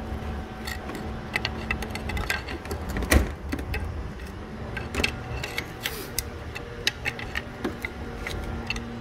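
Scattered metallic clicks and knocks of tools and parts in a car's engine bay as the alternator is pried loose, with one heavier knock about three seconds in, over a faint steady hum.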